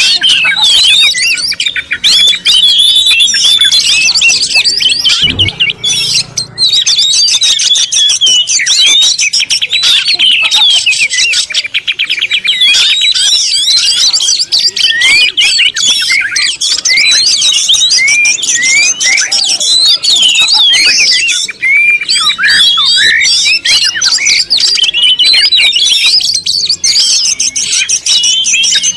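Many birds calling at once: a dense, continuous chatter of overlapping high chirps, with a brief low thump about five seconds in.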